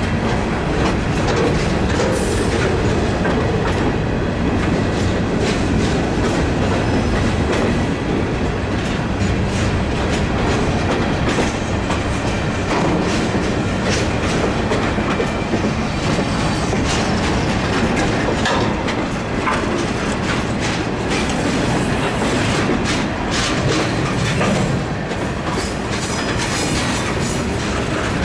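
Freight cars (covered hoppers, boxcars and tank cars) rolling past: a steady rumble of steel wheels on rail with clickety-clack over the rail joints. Sharp clicks come more often toward the end.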